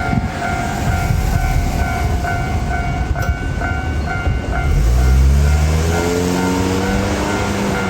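Japanese level-crossing bell ringing in a steady repeated ding-ding while a Toden Arakawa Line tram rumbles over the crossing. From about five seconds in, the tram's motor whine rises in pitch as it picks up speed.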